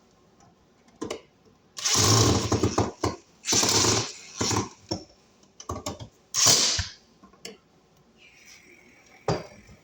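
Hand tools and small metal hardware clattering and scraping in several short bursts with scattered clicks, while receptacles are fitted and screwed into an outlet box.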